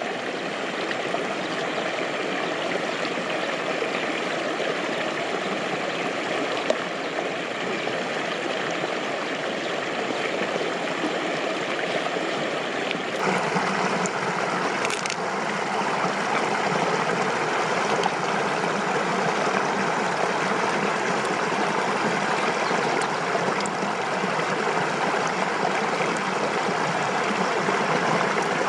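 Water flowing steadily, like a stream or running floodwater. About thirteen seconds in, the rush turns a little brighter and louder.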